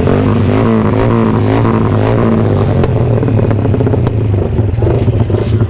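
Motorcycle engine with a loud exhaust, blipped up and down repeatedly over a steady idle in the first couple of seconds, then running on.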